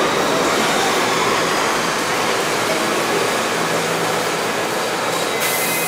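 An R68 subway train's cars rolling along the platform, a steady rumble and clatter of wheels on rails. A brief high hiss comes near the end.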